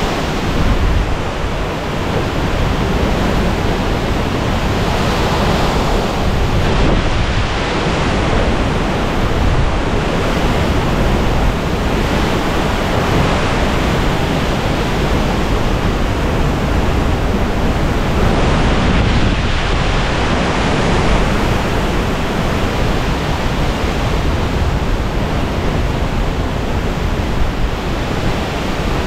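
Hurricane-force wind in the eye wall of a hurricane, blowing hard and without let-up and swelling in stronger gusts every several seconds, with a heavy low rumble of wind buffeting the microphone.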